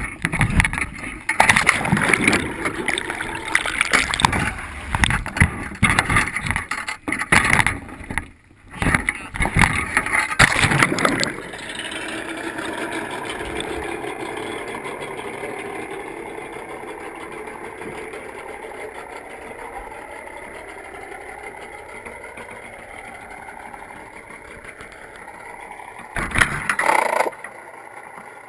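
A crab pot with the camera inside is handled and dropped over the side: loud knocking, rustling and splashing for the first ten seconds or so. Then muffled underwater sound as the pot sinks, with the faint rising and falling drone of a boat motor heard through the water and a short loud rush near the end.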